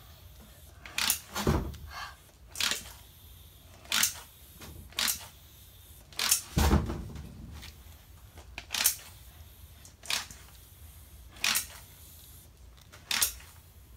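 Basketball hand air pump being worked on a flat bike tyre's valve: about ten short, hissing pump strokes at an uneven pace, roughly one every second or so. The tyre is not taking air, and the owner judges its tube dead.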